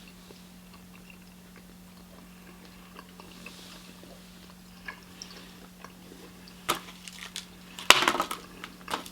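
Person biting into and chewing a sugar-dusted piece of Turkish delight: soft scattered mouth clicks, then louder sharp noises in the last few seconds, the loudest a short burst about eight seconds in.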